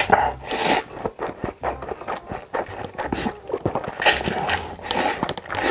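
Close-miked slurping and wet chewing of instant noodles, with a run of small mouth clicks and several sharp slurps, the strongest about half a second in and again around four and five seconds in.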